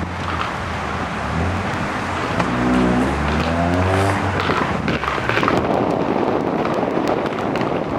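Street traffic: a passing car's engine rises in pitch as it accelerates, about two to four seconds in, over a steady low rumble of other traffic.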